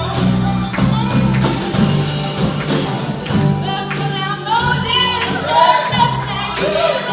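A live band playing a song with a steady beat, with voices singing from about halfway through.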